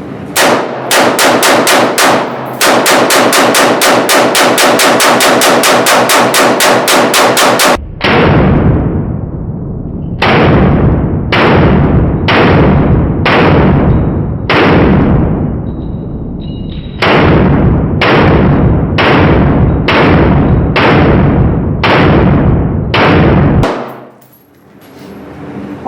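AR-15 rifle firing a rapid string of about five shots a second for some seven seconds. It is followed by around fourteen slower, deeper shots with long fading tails, roughly one a second, then the firing stops.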